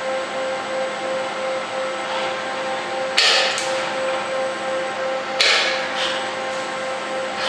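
The wire cutter unit of a Tipman CTC-001 auto contact tip changer snipping the robot torch's welding wire: two sharp snaps about two seconds apart, each trailing off briefly, over a steady machine hum.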